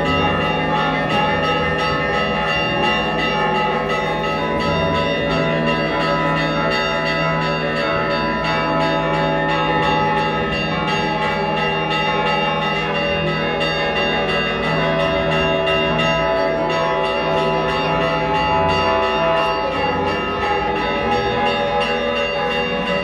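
Church bells ringing continuously, many quick strikes overlapping into one steady, dense peal.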